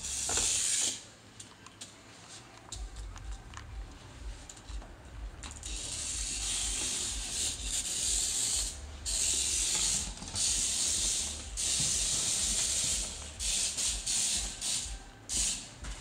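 Small toy remote-control car's electric motor and gears whirring in repeated bursts of a second or more, stopping and starting as it is driven, with scattered light clicks between the bursts.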